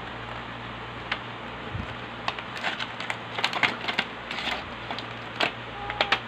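Cardboard box and clear plastic tray being handled as a power bank is slid out of its packaging: a run of light clicks, scrapes and crinkles, busiest in the middle and again near the end.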